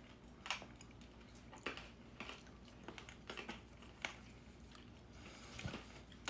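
Faint, scattered clicks and crunches of hard candy canes being bitten and eaten.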